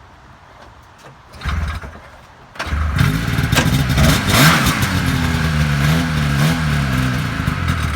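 A 1981 Ski-Doo Blizzard 5500's fan-cooled 500cc two-stroke twin starting from cold: a short burst about a second and a half in, then it catches a little later and keeps running, its pitch rising and falling as it is revved. It started right up.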